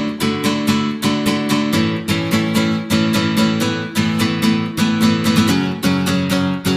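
Acoustic guitar music, strummed chords in a steady, even rhythm.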